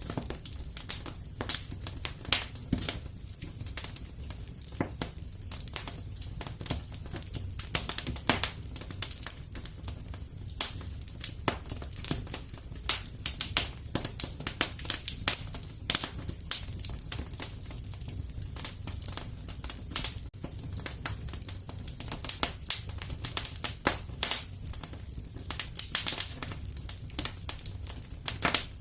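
Fireplace fire crackling, with irregular sharp pops over a low, steady rumble of flames.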